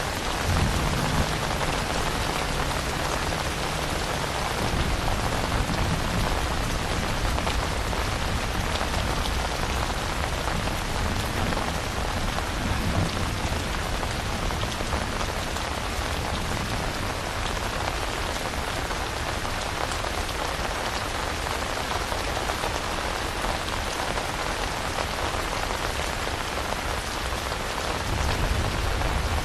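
Steady rain falling as an even hiss of drops, with a low rumble about a second in and again near the end.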